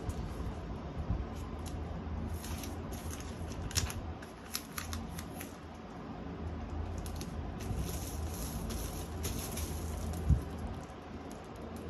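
Black plastic parcel wrapping crinkling and rustling under the hands as a paper shipping label is pressed and smoothed onto it, with a dull thump about ten seconds in.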